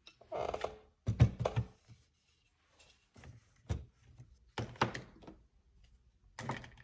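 Wooden tabletop easel and painting supplies being handled and set down on a desk: scattered knocks and clattering thuds in short clusters, the loudest a little after a second in.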